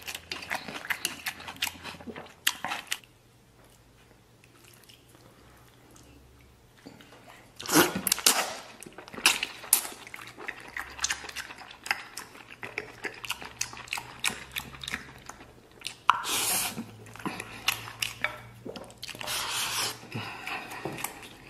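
Close-up mouth sounds of eating braised pork intestine with rice: wet chewing, smacking and sucking. The sounds drop to a quiet pause about three seconds in and pick up again about four seconds later.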